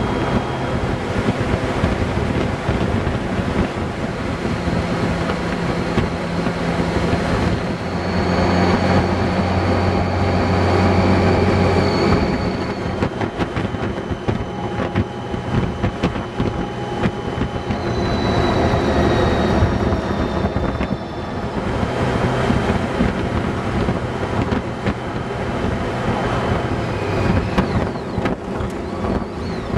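Honda Gold Wing motorcycle cruising at highway speed: a steady engine drone under wind rushing over the microphone. The engine note grows stronger for a few seconds about eight seconds in.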